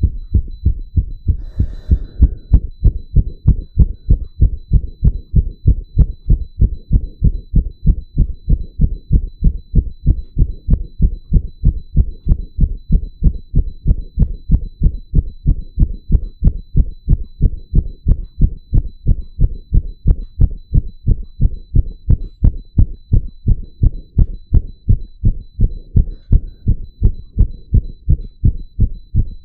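A man's heartbeat heard through a stethoscope, beating fast and very regularly in steady low thumps, with faint high beeps from an ECG monitor. A brief rustle comes about two seconds in.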